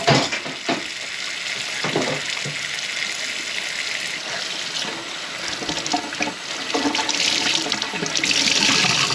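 Kitchen faucet running into the sink while the freshly cleared drain is tested. The steady hiss of water grows louder near the end, and there are a few light knocks in the first couple of seconds.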